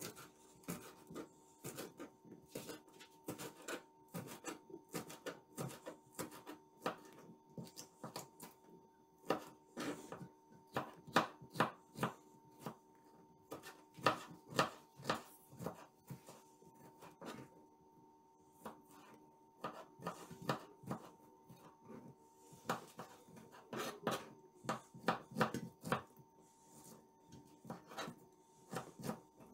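Quick, irregular small clicks and taps of fingers picking sweetcorn kernels and mushroom slices off a metal platter and dropping them onto pizza dough on baking trays, over a faint steady hum.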